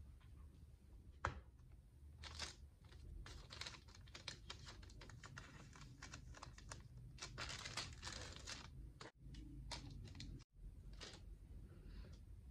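Faint rustling and crinkling of baking paper as crepes are handled and lifted off it, with scattered light taps and clicks. The crinkling is densest about seven to eight seconds in.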